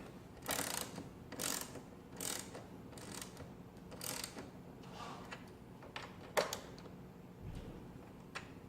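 Hand tool driving in the screws that hold a motorcycle gas tank down: short clicking strokes about once a second, with a sharper click a little past six seconds in.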